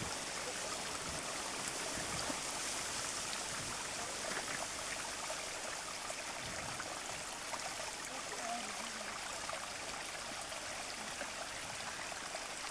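Shallow stream running over stones, a steady rushing and trickling of water.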